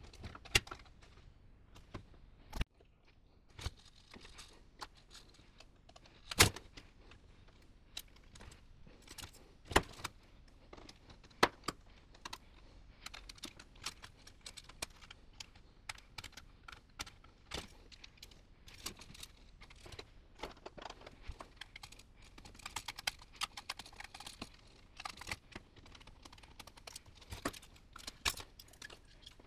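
Hand tools and sheet-metal parts of an instrument chassis clicking, tapping and clattering during a teardown. The clicks run on irregularly, with a few sharper metal knocks in the first half.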